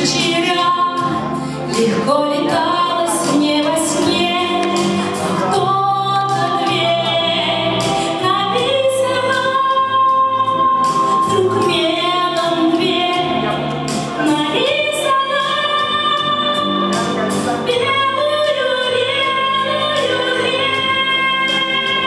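A woman singing a song through a handheld microphone over backing music with a steady beat, holding several long notes.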